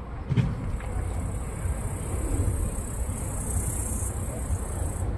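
A cricket trilling steadily at a high pitch, a little louder past the halfway point, over a low rumble. A single knock, like the microphone being bumped, about half a second in.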